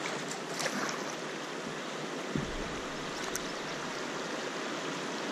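Shallow river water rushing steadily over and between rocks in a low-water riffle, heard from a kayak.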